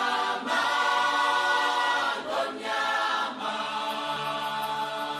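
Background music: a choir singing long held chords that change every second or two.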